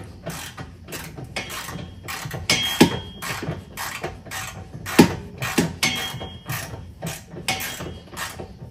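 Irregular metallic clicks and knocks of a steel pry bar working against the rear suspension as a serrated control-arm bolt is forced out of the rear knuckle. The sharpest knocks come a little under 3 s in and about 5 s in.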